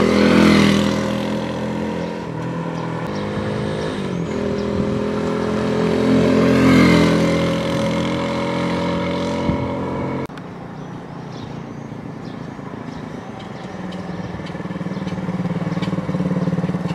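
SWIFT moped's engine running as it rides past close by, swelling and fading in loudness and pitch, with a second swell a few seconds later. After a sudden cut about ten seconds in, it is quieter and grows louder again as the moped approaches near the end.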